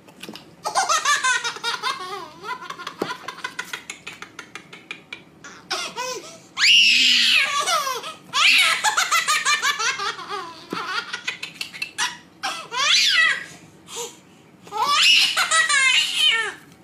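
A baby laughing hard in repeated fits of belly laughs and giggles, with short pauses between them.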